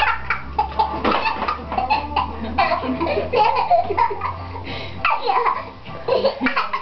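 Parrot chattering in a rapid run of short, wavering calls and clicks.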